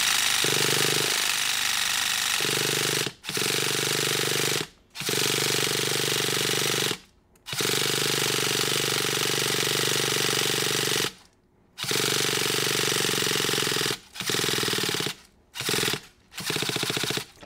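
The Revo 3.3's nitro engine is spun over by its electric starter in about eight rough bursts of one to four seconds, with short breaks between them. The engine never catches: its idle adjustment is shut all the way and the starter battery is running down.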